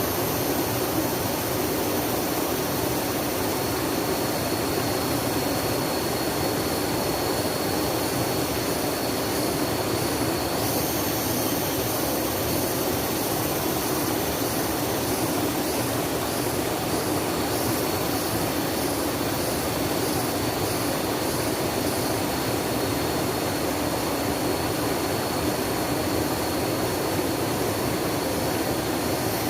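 Rushing water, a steady unbroken wash of sound with no changes. A thin steady high tone runs underneath.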